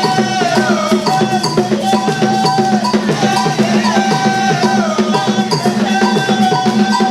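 Music with a steady, busy percussion beat under a melodic line of held notes that now and then slide between pitches.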